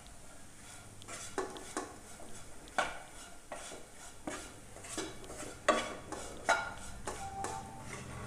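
A spatula stirring and mixing boiled potato pieces in a nonstick frying pan: irregular scrapes and taps against the pan, with a few louder knocks about three, six and six and a half seconds in.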